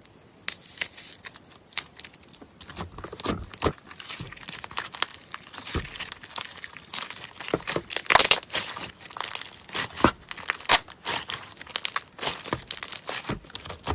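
Hands kneading and stretching slime: a dense, irregular run of sticky clicks and crackling pops, busiest and loudest about eight seconds in.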